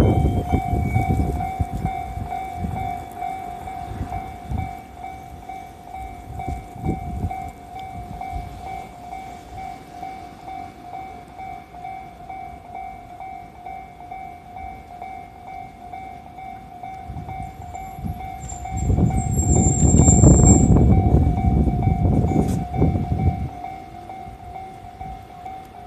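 Japanese level-crossing alarm ringing over and over without a break. A JR West 323 series electric train's wheels rumble past on the rails, loudest from about nineteen to twenty-three seconds in, with a thin high squeal for a moment. At the very start an earlier loud rumble is dying away.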